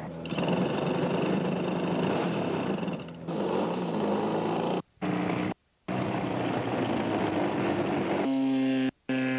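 The twin-cylinder engine of a radio-controlled scale aerobatic model airplane runs at high power, its pitch shifting up as it flies. The sound cuts out completely three times for a moment.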